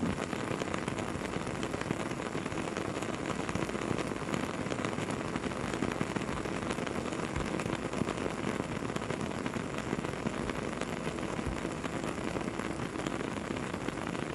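Campfire burning with a steady hiss and many small irregular crackles and pops.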